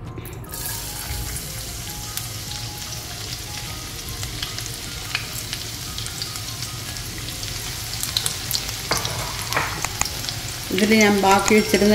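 Finely chopped garlic sizzling in hot oil in a pan, the hiss starting just as it goes in and running on steadily while it is stirred, with a few sharp clinks near the end.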